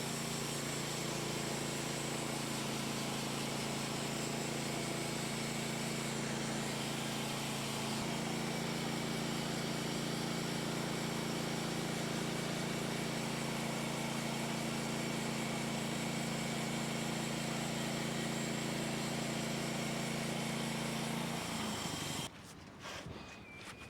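Portable bandsaw sawmill's engine running steadily, then cutting off suddenly near the end.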